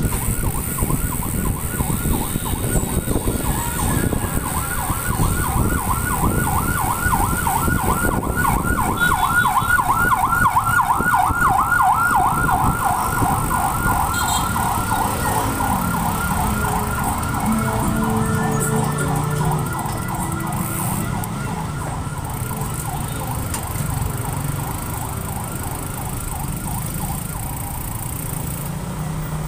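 Emergency vehicle siren on a fast yelp, several sweeps a second, growing louder to a peak about ten seconds in, then fading and stopping near the end. Underneath is the steady engine and road noise of the motorcycle carrying the camera.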